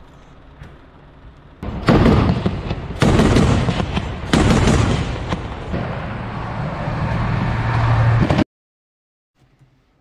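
Armoured personnel carrier's turret autocannon firing: several loud shots starting about two seconds in, over the vehicle's diesel engine running. The sound cuts off abruptly near the end.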